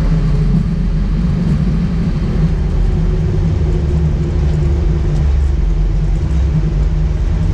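Steady low rumble of an Airbus airliner's flight deck during the landing roll-out, engine and runway noise as the aircraft slows, with a faint steady whine above the rumble.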